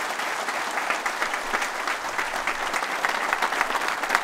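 Large crowd applauding: many hands clapping at once in a dense, even patter.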